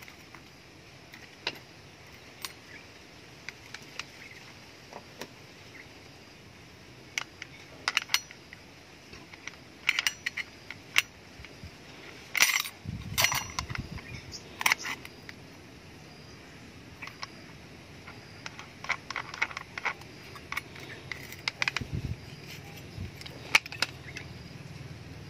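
Scattered metal clicks and clinks of a toothed circular saw blade being fitted onto an angle grinder's spindle by hand and its flange nut turned; the grinder is not running. The taps come irregularly, in busier runs about halfway through and again near the end.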